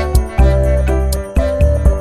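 Upbeat background music with a steady beat, deep bass notes and bright tinkling tones.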